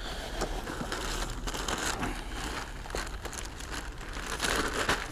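A plastic carrier bag crinkling and rustling as a hand rummages inside it, loudest near the end.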